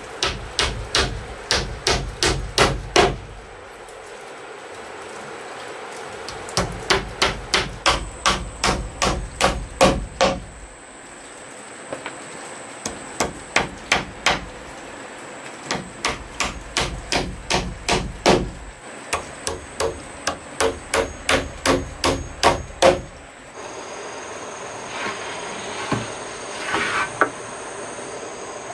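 Claw hammer driving nails into a timber beam, in runs of quick, regular strikes about three a second with short pauses between runs. In the last few seconds the hammering stops, leaving a few softer knocks.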